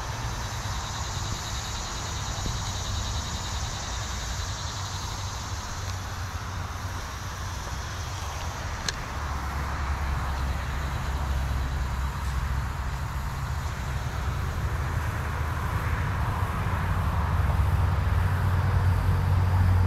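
Steady low rumble of distant road traffic, growing louder toward the end, with one sharp click about nine seconds in.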